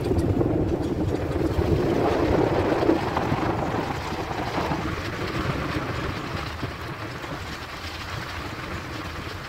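A moving car's road and engine noise, with wind rushing and buffeting the microphone at the car's side window. It is strongest for the first three seconds or so, then eases slightly.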